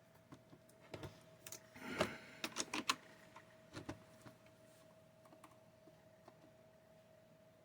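Small sharp clicks and taps of a screwdriver and plastic parts as a replacement LCD screen is screwed down into a Dell E6400 laptop lid, coming thick and fast in the first three seconds, then thinning to a few scattered clicks, over a faint steady whine.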